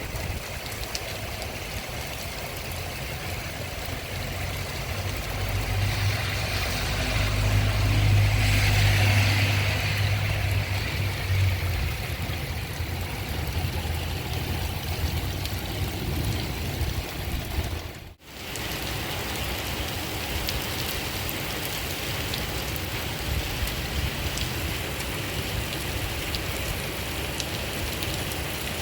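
Steady rain falling, while a vehicle passes: a low engine hum swells from about six seconds in and fades by about twelve. The sound drops out for a moment about two-thirds of the way through, then the rain goes on.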